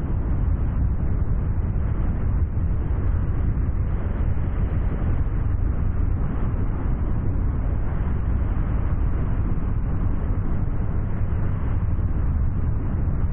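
Boat under way: a steady low rumble of the motor mixed with wind noise on the microphone.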